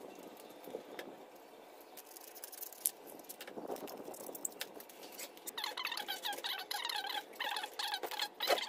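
Foam squeaking as a curved foam piece is rubbed and pressed around the foam nose of an RC jet model, in a rapid run of squeaks starting about halfway through. Light handling clicks and taps come before it, with a knock near the end.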